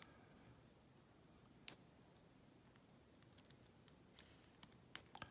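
Small metal lock parts being handled while a Yale 417N lock cylinder is gutted: a few light, scattered clicks of pins and tools. One sharp click comes a little under two seconds in, and several quicker clicks follow near the end.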